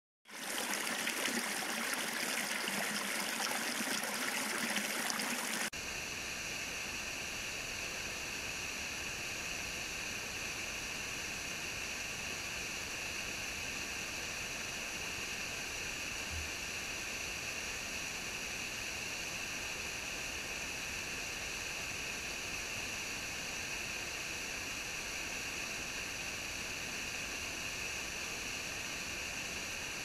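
Rushing water of a waterfall cascading over rocks. A little under six seconds in, the sound cuts abruptly to a slightly quieter, steady rush of water.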